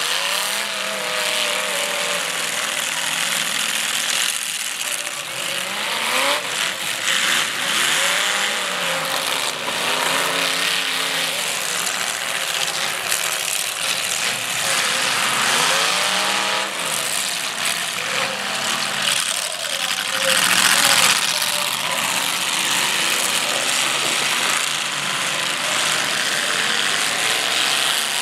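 Demolition derby cars revving hard through open exhaust pipes, several engines at once climbing and falling in pitch again and again, with occasional bangs and crunches of metal as the cars ram each other.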